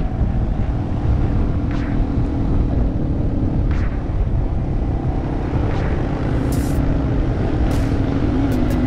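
Yamaha TW200 dual-sport motorcycle's single-cylinder engine running steadily while riding, under a heavy low rumble of wind and road noise, its note rising slightly near the end.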